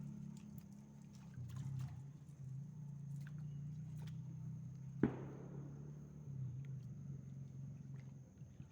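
Kayak paddling: light clicks and drips over a steady low hum, with one sharp knock about five seconds in.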